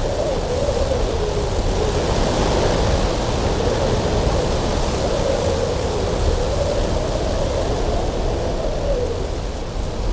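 Cold winter wind blowing steadily over a deep rumble, with a howling whistle that slowly wavers up and down in pitch.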